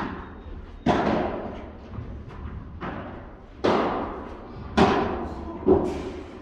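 A padel rally: about six sharp pops of the ball off rackets, court and glass walls, roughly a second apart, each ringing out in the large hall.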